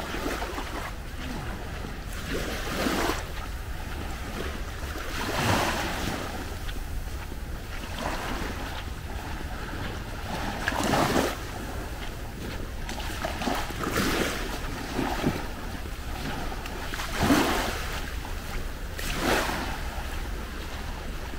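Small waves breaking and washing up the beach, a fresh swell every two to three seconds, over a steady low rumble of wind on the microphone.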